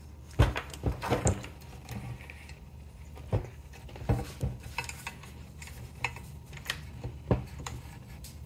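Handling noise from a Lamb (Ametek) central vacuum motor being turned over by hand: irregular clicks and knocks as its housing bumps and rattles against the plastic workbench, the sharpest near the start and about seven seconds in, over a faint low hum.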